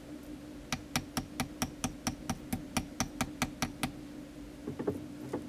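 Hammer striking a fine-silver chain against a steel bench block in a quick, even run of taps, about five a second for some three seconds, tightening the links together and flattening them. A few lighter taps follow near the end.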